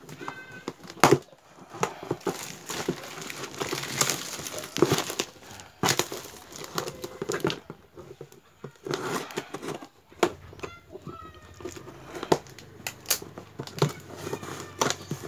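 Scissors snipping and cutting packing tape on a cardboard box, with crinkling and tearing of the paper and plastic wrapping: irregular sharp clicks and rustles.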